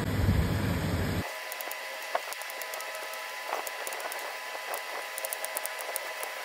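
Chicken pieces frying in hot oil in a wok, a loud even sizzle, cut off after about a second by a knife chopping onion on a cutting board: scattered sharp taps and clicks of the blade hitting the board.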